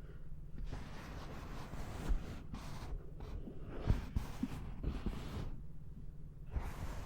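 Soft rubbing and brushing strokes, coming and going with short pauses, over a steady low background hum.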